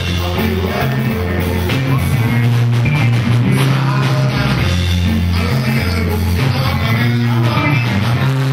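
Amplified live band playing: electric guitars and drum kit over a heavy bass line whose notes change about once a second, with a man singing into a microphone.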